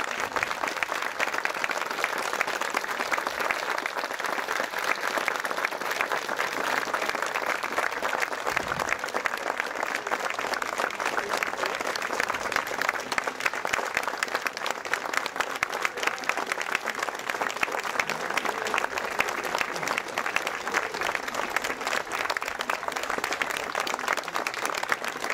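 Audience applauding steadily at the end of a dance performance, many hands clapping at once without a break.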